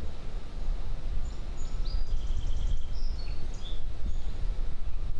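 Wind buffeting the microphone as a steady low rumble, with several faint, short bird chirps and whistles between about one and four seconds in.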